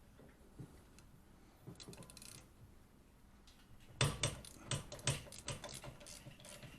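Hand tools clattering as they are picked through: faint clicks about two seconds in, then from about four seconds a quick, irregular run of sharp metallic clicks and knocks, several a second.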